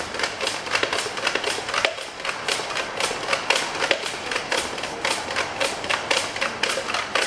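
Bicycle pump being worked in repeated short strokes, several a second, each a short burst of air and clatter, as it inflates a BMX tyre's new inner tube up to about 60 psi.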